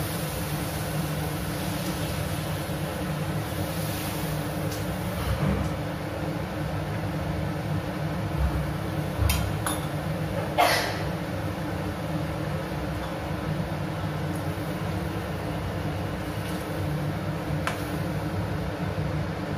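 Steady hum, with a few clinks of a steel spatula against a steel kadhai of noodles cooking in water, about nine to eleven seconds in.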